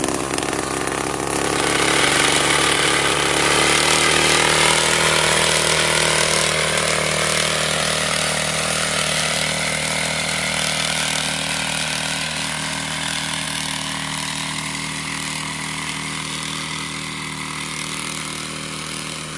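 Tasco TF 820 backpack power sprayer's small two-stroke engine running steadily while spraying through a six-nozzle boom. It grows slowly fainter through the second half.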